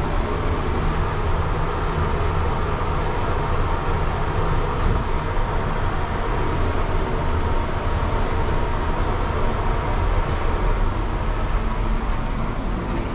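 Passenger lift running: a steady low hum and rushing noise from inside the moving glass-walled car, with a faint steady whine above it.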